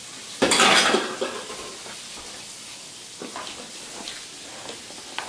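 Kitchen sounds: a short, loud clatter about half a second in, then a few light clicks as kitchen scissors snip greens in a glass bowl, over a faint steady hiss.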